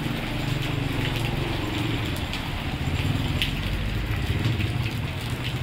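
Motorcycle engine idling with a steady low rumble, with light ticks of rain.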